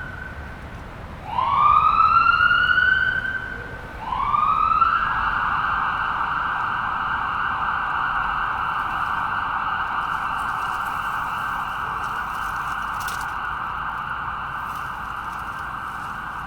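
Ambulance siren wailing: two rising sweeps, then a third that rises and holds as one long steady tone, slowly fading.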